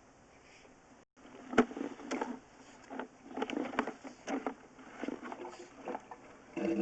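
Irregular knocks and clattering of handled equipment. Near the end a steady, low-pitched motor drone starts abruptly.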